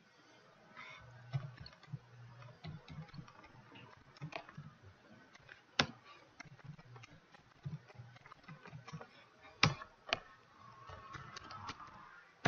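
Irregular clicks of a computer keyboard and mouse, a few scattered key presses at a time, with two sharper, louder clicks about six and ten seconds in.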